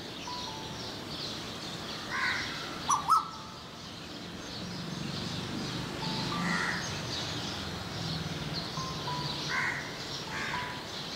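Crows cawing every few seconds over a steady chatter of small birds chirping. Two sharp knocks about three seconds in are the loudest sounds.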